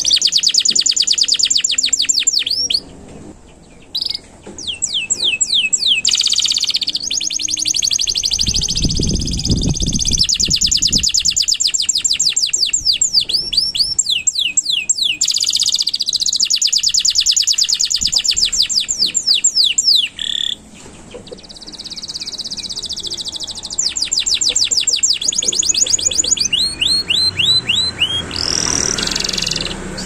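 Domestic canary singing a long song of fast rolling trills: rapid runs of repeated falling notes, broken by two short pauses. A brief low rumble comes about nine seconds in.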